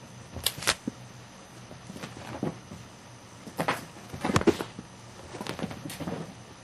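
A cat dashing and pouncing on carpet: a string of soft thumps and scuffs. The loudest cluster of thumps comes about two-thirds of the way through.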